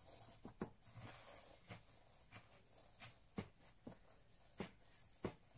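Faint, irregular taps and soft rustles of hands pressing breadcrumbs onto an egg-dipped sandwich on a plate.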